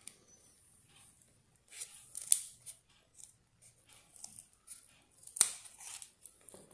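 Scissors snipping through a piece of white card in a series of short cuts, with the two sharpest snips about two seconds in and about five seconds in.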